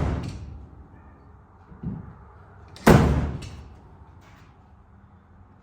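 Slide hammer pulling on a cold-glue tab stuck to a dented truck bedside: a softer knock about two seconds in, then one loud slam of the weight against its stop about a second later.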